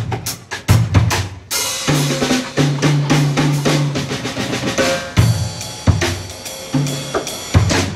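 A live jazz band playing an instrumental passage. The drum kit is prominent, with bass drum, snare, rimshots and cymbals, and sustained low bass guitar notes sit under it.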